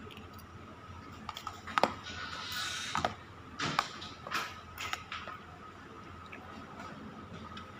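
Metal spoon and fork clinking and scraping on a plate of fried rice while eating: several short clinks in the first five seconds, then quieter.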